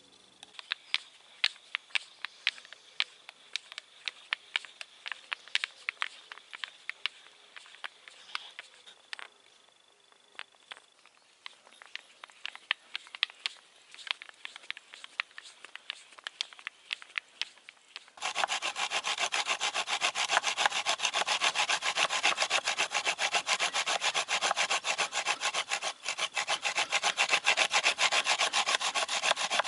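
Sharp, irregular clicks and crackles as a bit bores into a wooden block. About eighteen seconds in, a hand saw starts cutting through the wood with fast, steady back-and-forth strokes, much louder than the drilling.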